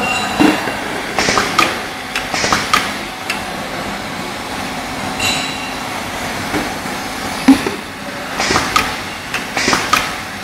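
Labeling machine running: irregular clacks and knocks in clusters every second or two, with short hissing bursts, over a faint steady hum.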